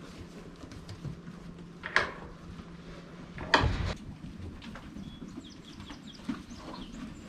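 Two short knocks about a second and a half apart, the second louder, followed later by a few faint high chirps.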